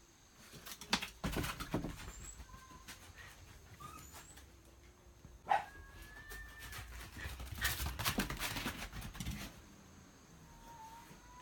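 A Shiba Inu barking in two quick flurries, with a single sharp bark between them. A few short cat meows come in the gaps.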